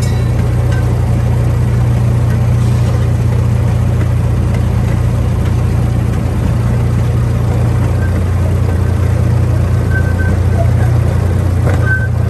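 Small amusement-park ride train running along its track, its engine giving a steady low hum.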